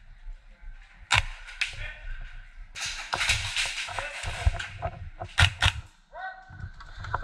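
Airsoft gas blowback rifle firing: sharp cracking shots, a single one about a second in and another shortly after, then a quick cluster of shots about five and a half seconds in. A rushing noise lasts about a second and a half near the middle.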